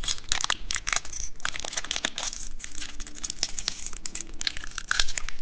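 Candy wrapper crinkling as it is handled and opened, in a rapid, irregular crackle with some tearing.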